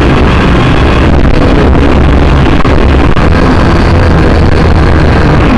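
Small electric motors and propellers of a Syma toy quadcopter running steadily, picked up by its own onboard camera microphone. The sound is loud and overloaded, a continuous rushing buzz with a faint whine over it.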